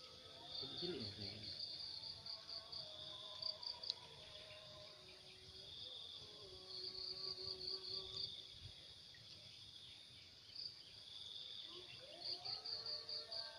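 Faint insect chorus: a steady high buzz with runs of quick pulsed chirps, about three a second, that come and go.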